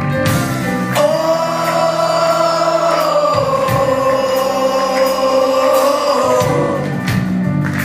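Live rock band playing, with one long note sung and held over it from about a second in until near the end. The bass drops out for the first couple of seconds of the held note.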